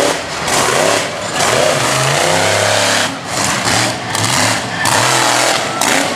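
Monster truck engine revving hard, its pitch rising and falling, with several brief lifts off the throttle.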